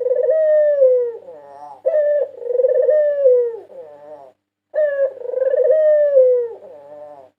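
White domestic dove (puter putih) cooing: three repeated coo phrases, the first already under way at the start, each a falling note that ends in a short rolling tail.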